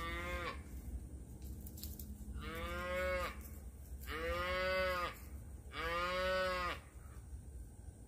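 Cattle mooing: one short call, then three long calls of about a second each, every one rising and then falling away in pitch.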